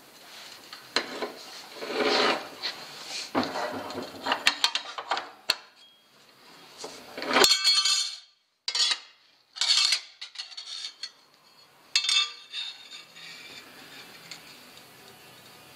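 Bench-mounted lever shear cutting sheet steel, with the cut pieces handled on a steel workbench: an irregular run of metallic clanks, scrapes and sharp cutting snaps, loudest just past halfway.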